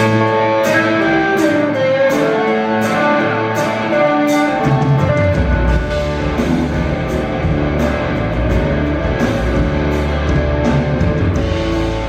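Live rock band playing: guitar lines over drums with regular cymbal hits. The low bass drops out for the first five seconds or so, then comes back in.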